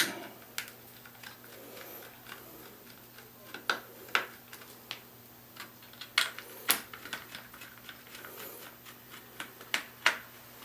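Sharp clicks and light taps as screws are undone from the plastic back of a Yongnuo YN600 LED panel, coming irregularly, often in pairs about half a second apart.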